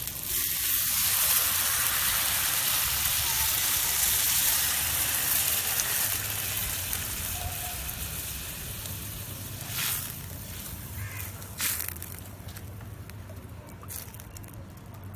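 Water poured into a hot kadhai of oil-fried onions and chana dal, hissing and sizzling loudly for about five seconds, then slowly dying down as the pan settles into a simmer. Two short knocks come later on.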